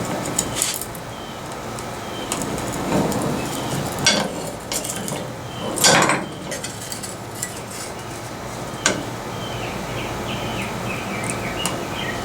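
Scattered metallic clinks and knocks of hand tools and sheet metal being handled, with one louder clank about six seconds in.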